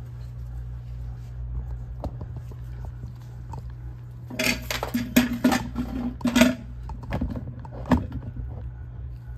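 Steady low electrical hum of running lab equipment, over which a cluster of clattering and rustling handling noises comes from about four to six and a half seconds in, with one more knock near eight seconds.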